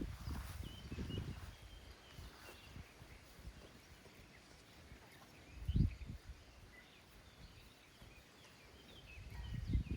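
Quiet farmyard ambience: faint bird chirps, with a few dull low thumps or rumbles, the loudest about six seconds in.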